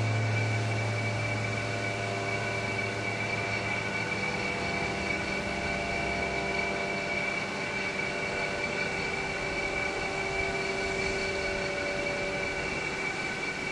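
An engine running steadily: an even mechanical drone made of several constant tones, with a low hum that fades away in the first couple of seconds.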